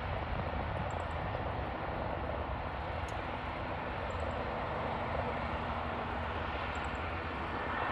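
Distant airliner engines running steadily across an airfield: an even rumble and hiss with no change in pitch. Faint high chirps come a few times.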